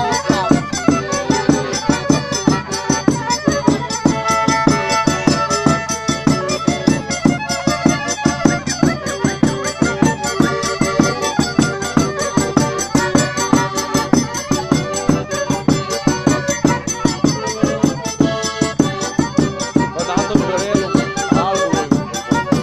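Live Romanian folk dance tune on a horn violin (a Stroh-type violin with a metal amplifying horn, the vioară cu goarnă of Bihor), with a piano accordion and a bass drum keeping a steady beat.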